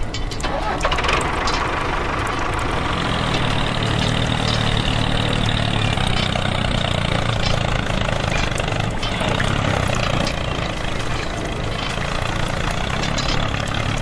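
A tractor engine running steadily at idle, with a hiss that comes in about half a second in.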